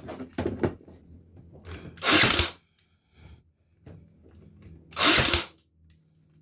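Fujiwara 20V battery cordless nailer firing twice, about three seconds apart, each shot a short half-second burst as its air-compression piston drives a nail into a board. Light handling knocks come between the shots.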